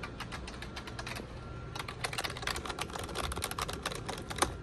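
Typing on a computer keyboard, its keys clicking: a few scattered key presses at first, then quick, dense typing from about two seconds in.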